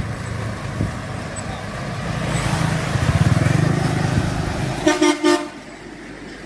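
Traffic noise from laden flatbed trucks and motorbikes passing on a road, with engine noise building as a truck goes by. About five seconds in, a vehicle horn sounds in a short rapid series of toots.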